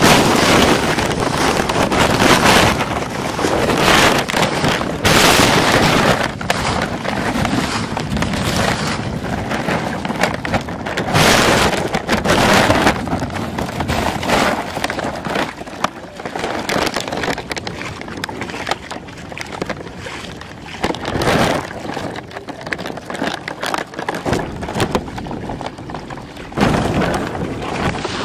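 Muddy water splashing as it is flung out of a bucket while a shallow ditch is bailed, in noisy bursts every second or two, with wind blowing on the microphone.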